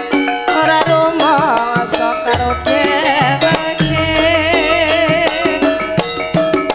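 Javanese gamelan music for tayub dancing: kendang hand drums play quick strokes with low bending drum notes, over steady ringing gamelan tones, and a female singer sings an ornamented, wavering vocal line.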